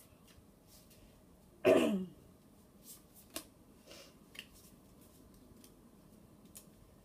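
A person clears their throat once, briefly, about a second and a half in. Faint scattered clicks of playing cards being handled follow.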